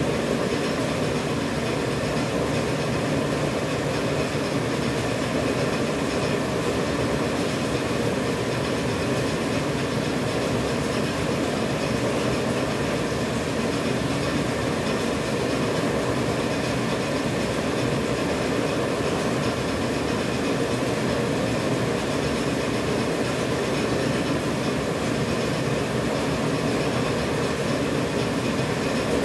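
Dental (disposable surgical) mask production machine running, a steady, dense mechanical clatter with an underlying hum.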